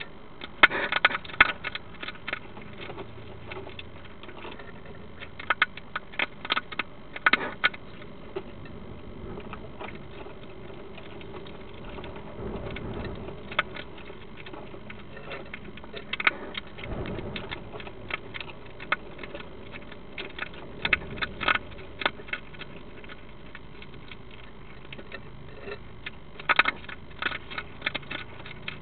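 European hedgehog crunching food from a bowl: clusters of sharp crunches a second or two long, separated by pauses of several seconds.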